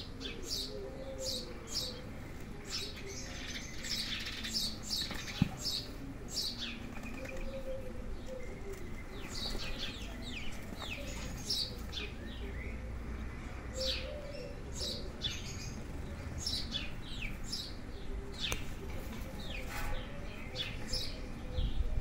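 Small birds chirping over and over, many short high chirps through the whole stretch, with one sharp knock about five seconds in.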